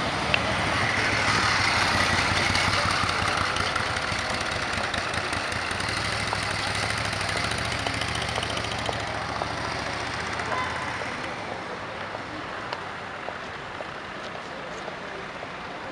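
Cars driving past slowly in city traffic: a low steady engine note with road noise, loudest a couple of seconds in, then fading gradually as they move away.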